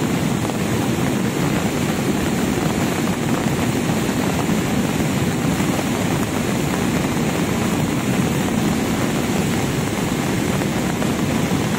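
Cold lahar flood from Mount Semeru: a torrent of muddy water and debris rushing down the river channel, making a steady, loud noise that does not let up.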